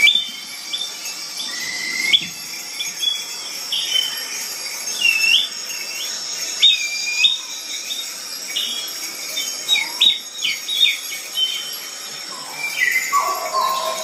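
Rainforest sound effects: many short whistled bird-like chirps that glide up and down, over a steady high insect-like buzz.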